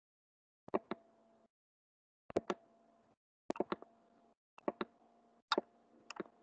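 Computer mouse clicks in quick pairs and triples, a group about every second. Each group is followed by a short faint steady hum that cuts off abruptly.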